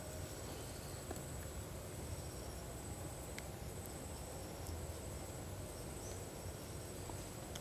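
Quiet outdoor ambience: a faint, steady, high-pitched insect call over a low rumble, with a few faint ticks.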